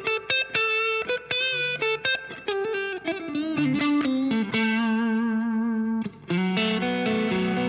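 Electric guitar overdriven by an MXR Duke of Tone pedal, played into a Laney Lionheart Loudpedal amp with Vintage 30 cabinet impulse responses. It plays a quick lead line of short picked notes, then holds one long note with vibrato, and after a brief break takes up fresh sustained notes.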